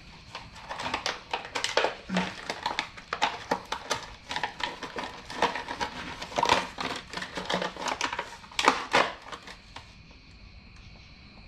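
A replacement saw chain being handled and taken out of its package: irregular crinkling of packaging and clicking of chain links, which dies down about nine seconds in.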